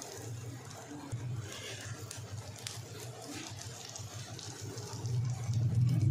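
Egg-coated shami kababs sizzling as they shallow-fry in ghee in a non-stick pan, with soft taps and scrapes of a silicone spatula turning them. A low hum grows louder near the end.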